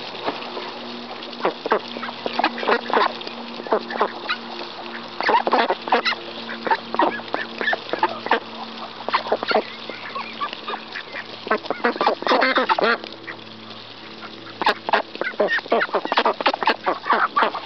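White domestic ducks feeding at close range: rapid clicking and dabbling of bills in scattered grain, coming in bursts with a short lull past the middle. Occasional low quacks are mixed in.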